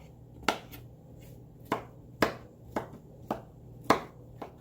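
Kitchen knife chopping mushrooms, a string of sharp, uneven knocks about every half second.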